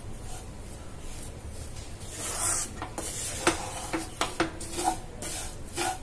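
Wooden spatula stirring and scraping crumbly mawa and powdered sugar around a kadhai. The scraping strokes start about two seconds in, with a few sharp knocks of the spatula against the pan.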